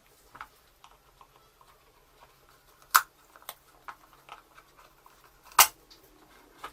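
A cardboard product box being opened and handled: scattered light taps and rustles, with two sharp clicks or snaps, about three seconds in and again two and a half seconds later.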